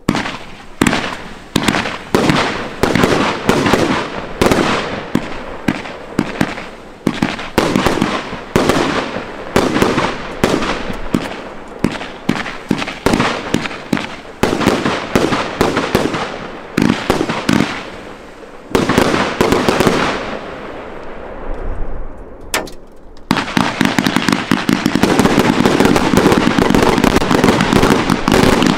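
Consumer fireworks firing shot after shot, each a sharp bang, about two to three a second, with comet tails rising and shells bursting overhead. About 23 seconds in, the single shots give way to a dense, continuous crackling barrage.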